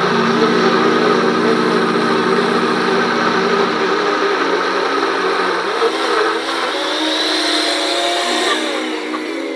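NutriBullet personal blender motor running steadily as it blends soaked sea moss and water into a smooth gel. Its pitch shifts from about halfway through.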